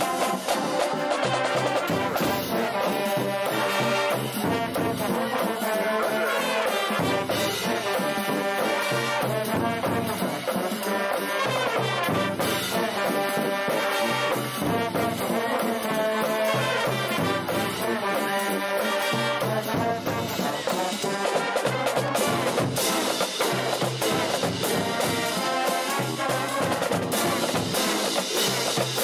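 A marching band playing a tune: brass horns carry the melody over bass drums, snare drums and cymbals keeping a steady beat.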